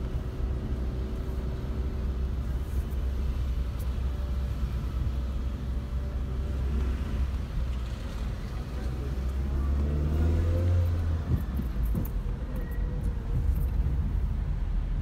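Car engine and road noise heard from inside the cabin while driving slowly: a steady low rumble, with an engine note rising about nine seconds in.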